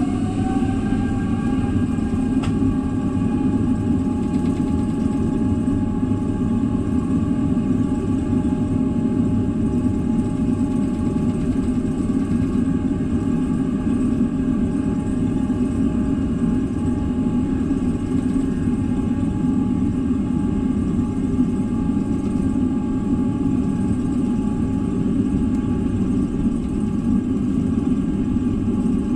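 Boeing 777-300 jet engines heard from inside the cabin. Their whine rises as they spool up to takeoff thrust and levels off about a second in, then holds as a loud, steady roar with a steady whine on top through the takeoff roll.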